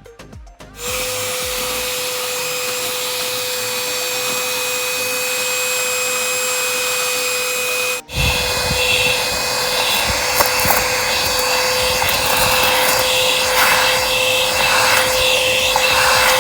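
XREXS cordless handheld vacuum cleaner switched on and running, a steady motor whine over rushing air. It cuts out for a moment about halfway, then runs on with a fuller, uneven rush.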